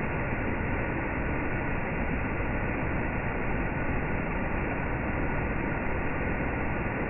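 Water cascading over and through closed canal lock gates into the lock chamber, a steady rushing.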